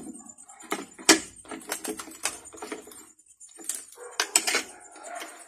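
Crisp lechon skin cracking and crunching as it is broken apart with a spoon and fork and then by hand, with sharp, irregular cracks and clicks of the utensils against the skin and plate.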